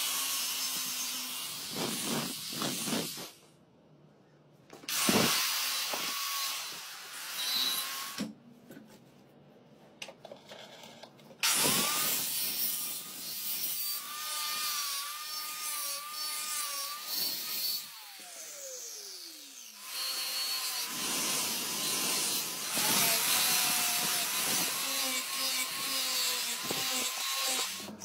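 Angle grinder grinding steel in several bursts with short pauses between them, its motor whining under load. Partway through, the grinder is switched off and its whine falls away as the disc spins down.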